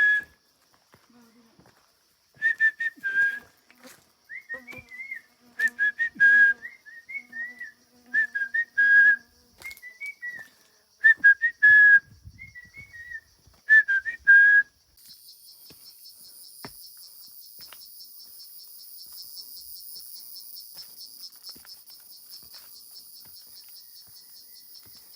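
Clear whistled notes with small pitch glides, in short phrases of a second or so, for about fifteen seconds. Then a sudden change to a steady, high, fast-pulsing insect buzz.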